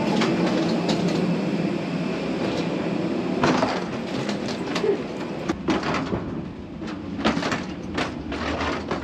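Airbus A321 cabin after landing: a steady low rumble, with sharp clicks and clunks scattered through it that come more often from about three and a half seconds in.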